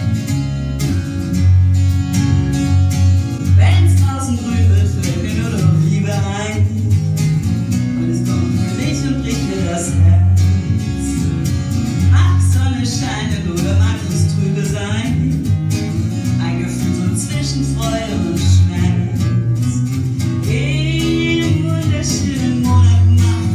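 A woman singing into a microphone over two guitars, one acoustic, playing a song; the guitars play alone at first and the voice comes in about three and a half seconds in.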